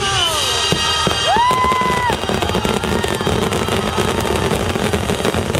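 Fireworks display: a rising whistle about a second in that holds briefly and stops, then dense crackling and popping from many shells bursting together. The show's music fades out in the first second.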